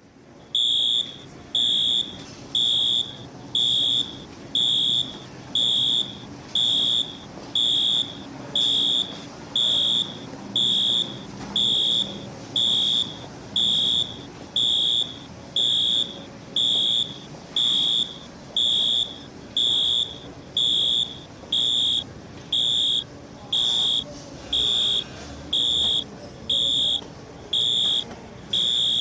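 Fire alarm sounder going off: a loud, high-pitched beep repeating about once a second, each beep about half a second long, starting about a second in.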